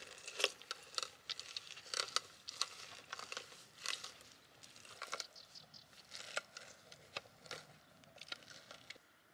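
Orange halves pressed and twisted by hand on a plastic citrus reamer: an irregular run of sharp clicks and crunches as the fruit grinds against the ridged cone, thinning out near the end.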